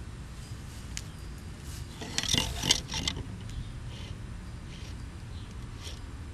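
A brief clatter of light clicks and scraping about two seconds in, over a steady low background rumble.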